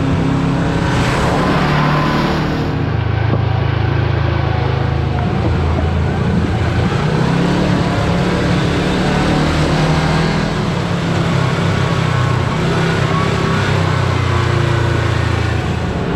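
Kawasaki Teryx KRX4 1000 side-by-side's parallel-twin engine running under way on an off-road trail, its pitch rising and falling with the throttle, over a steady rush of tire and trail noise. About a second in, a brief burst of hissing noise rises above it.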